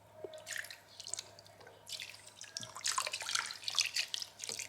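Broth splashing and dripping into a crock pot of pork chops as it is poured in: irregular small liquid splashes that grow busier about halfway through.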